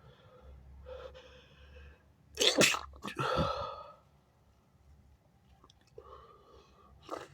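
A person's loud sneeze about two and a half seconds in, after a voiced build-up of catching breaths, coming as a sharp burst followed at once by a longer voiced second burst. A softer breath follows, then a short sharp sniff-like burst near the end.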